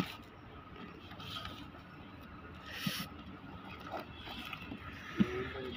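A cardboard box being cut open with a thin metal rod: scraping along the packing tape and cardboard, with a short ripping tear about three seconds in. A short pitched sound, the loudest moment, comes near the end.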